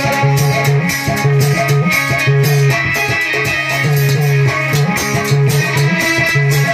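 Loud instrumental dance music: a plucked-string-like melody over a repeating bass line and a steady beat, with no singing.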